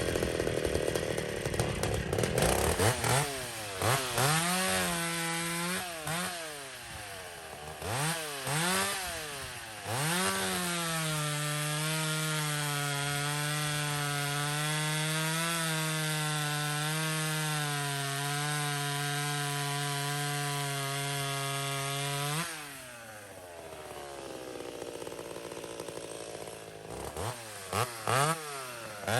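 Two-stroke chainsaw revving in several short blips, then held at full throttle in a long cut through wood lasting about twelve seconds, its pitch sagging slightly under load. It then drops back to idle and is blipped a few more times near the end.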